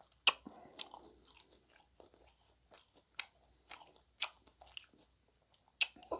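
Close-miked eating: a person chewing with a series of sharp, crisp crunches and wet mouth clicks at irregular intervals, the loudest about a third of a second in and near the end.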